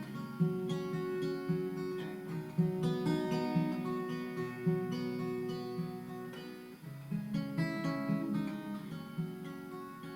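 Acoustic guitar strummed in a steady rhythm, playing the introduction to a song.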